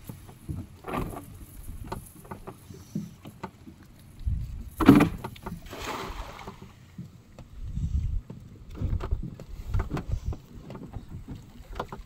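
A cast net thrown from a wooden boat lands on the water about five seconds in: a sharp splash, then a short spray-like patter as its weighted rim hits the surface and fades. Throughout there is low wind rumble on the microphone and scattered light knocks.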